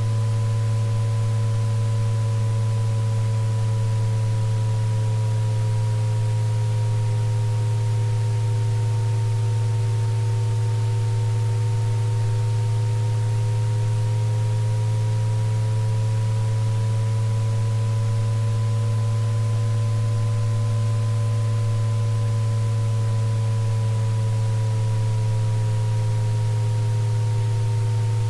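Electronically generated tones of a tinnitus sound-therapy track. A strong low steady tone is joined by several fainter higher tones that slowly waver up and down in pitch, over a soft even hiss.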